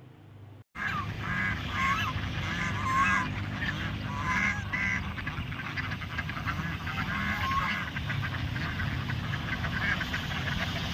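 Geese honking, several calls in clusters over a constant background din.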